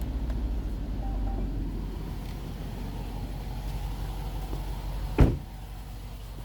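Range Rover engine idling with a steady low rumble. A single sharp, loud thump comes a little after five seconds in, and the rumble is quieter afterwards.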